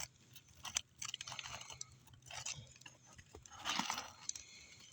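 Asphalt roof shingles crunching and scraping in short, irregular bursts as they are worked loose and lifted, with a few sharp clicks.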